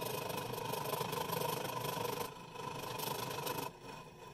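Variable-speed scroll saw running, its thin reciprocating blade cutting through a small piece of scrap oak. The sound is steady, eases briefly about two seconds in, and falls away near the end.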